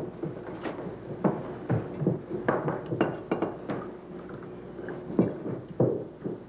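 Glasses and a bottle knocking and clunking on a wooden bar counter as drinks are served: a quick, irregular run of knocks, about fifteen in all, over a faint steady hum.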